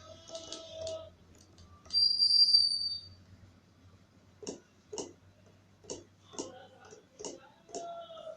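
Computer audio from FL Studio being driven from a MIDI keyboard: a short high electronic tone about two seconds in, then evenly spaced ticks at about two a second, like the program's metronome running at playback.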